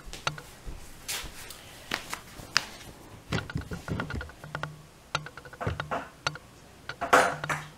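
Irregular light clicks and taps from objects being handled, with a louder rustle about seven seconds in.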